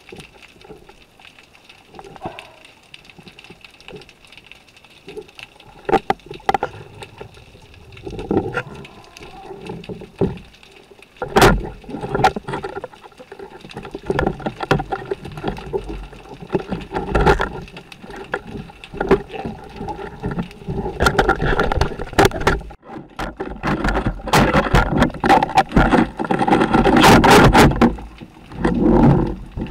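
Underwater noise picked up by a camera in a waterproof housing: a rushing water haze with many irregular sharp clicks and knocks from the diver's movements and gear, busiest and loudest a few seconds before the end.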